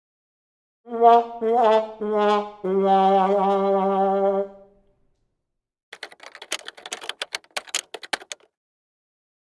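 A comic sad-trombone sound effect: four brass notes stepping down in pitch, the last one held long with a wobble. A few seconds later comes a quick run of clicks, like typing.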